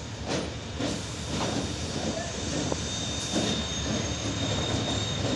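Diesel-electric locomotive drawing a passenger train slowly into a station platform: a steady low engine drone with scattered wheel clicks over the rail joints. A thin high-pitched whine comes in about halfway through.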